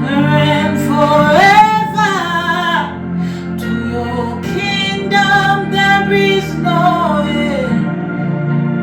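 Worship music: a singer's voice holding long notes that slide up and down, over a steady instrumental backing.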